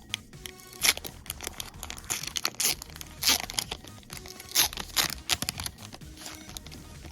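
Foil trading-card booster pack being torn open, its wrapper crinkling in a string of sharp rips and rustles, over soft background music.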